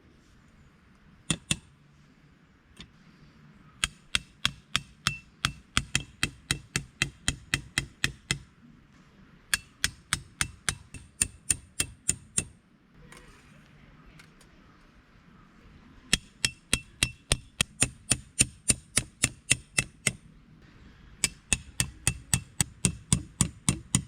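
A hammer driving metal tent pegs into the ground: runs of sharp ringing strikes at about three a second, in four bursts with short pauses between.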